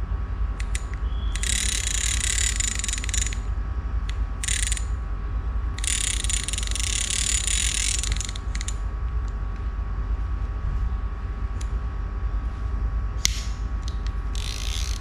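Shimano Ocea Jigger 1501HG jigging reel worked by hand, its gears and ratchet whirring and clicking in spells: a long one about a second and a half in, a short one, another long one about six seconds in, and a last one near the end, with single clicks between.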